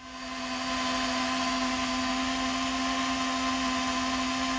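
Electric motors and propellers of an E-flite V-22 Osprey RC model running at a steady speed, a humming whine that rises to full level over the first second and then holds steady.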